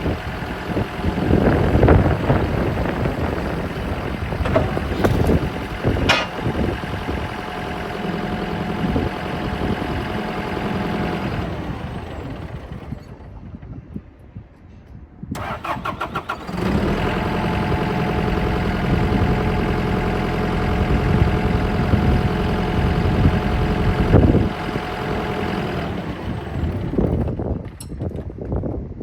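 Cat 420E backhoe loader's diesel engine running, then winding down and stopping about halfway through. After a short pause the starter cranks for about a second, and the engine catches and runs steadily again.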